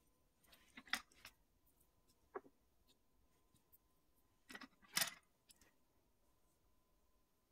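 Light clicks and taps of small nail-art tools being handled and set down on a table. The sounds come in two short clusters, about one second in and about five seconds in, with a single tap between them; the rest is near silence.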